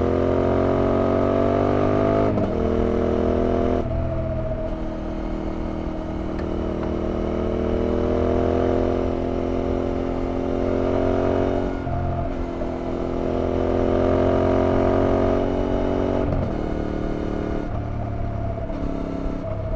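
Yamaha TDM 850's parallel-twin engine pulling hard under acceleration, its pitch climbing and dropping back at each upshift, about four times.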